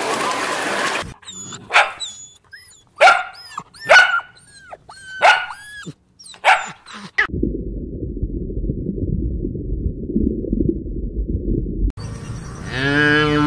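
Puppy barking and yipping about six times: short, sharp, high barks with whiny pitch bends. A low muffled rumble follows for several seconds, and near the end a calf starts to moo.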